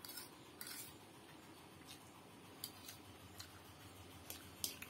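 Metal fork scraping and tapping on a plate while picking up noodles: faint, scattered light clicks and short scrapes, the sharpest click near the end.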